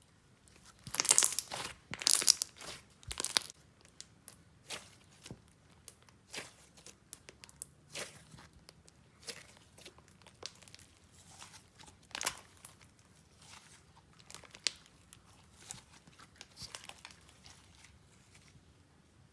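Clear and jelly slime mixed with slushy beads being squished and stretched by hand: crackly pops and crunches. They come thick and loud for the first few seconds, then as scattered clicks.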